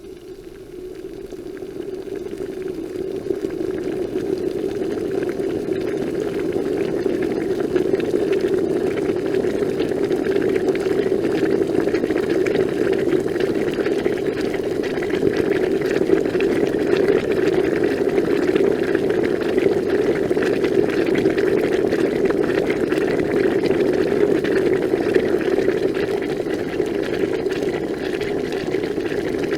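Water coming to a boil: a bubbling, rumbling noise that grows louder over the first few seconds and then holds at a steady rolling boil.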